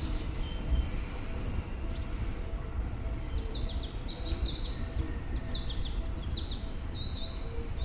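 Low rumble of a Seibu 101-series electric train slowly pulling away, with small birds chirping in short high calls, most of them between about three and six seconds in and again right at the end.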